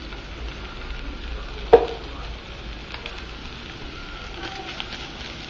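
Shredded chicken filling sizzling in a metal pan while being stirred with a spatula. A single sharp clank of the spatula against the pan comes about two seconds in.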